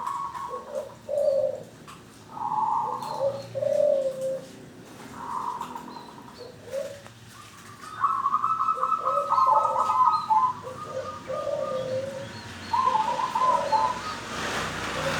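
Zebra dove (perkutut) cooing: a run of short, soft coo notes, then from about halfway a longer rolling, trilled coo repeated several times.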